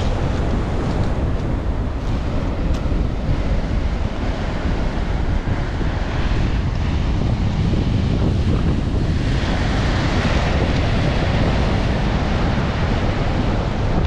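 Sea surf breaking and washing over a pebble beach, with heavy wind rumble on the microphone. The wash grows louder and hissier about nine seconds in.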